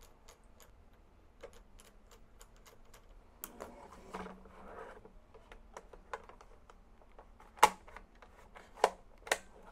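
Scattered light clicks and taps of plastic parts being handled and fitted together on a toy gel blaster, with a few sharper clicks near the end.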